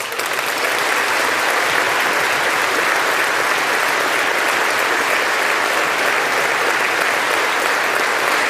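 A large audience applauding, building over the first second and then holding steady.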